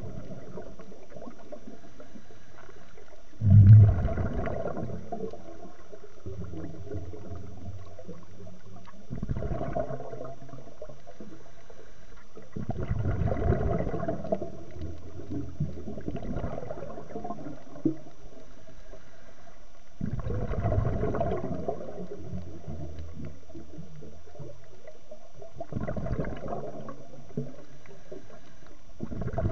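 Scuba diver's breathing heard underwater through the camera: a noisy rush of exhaled bubbles from the regulator every four to seven seconds, the loudest about four seconds in, over a low steady rumble.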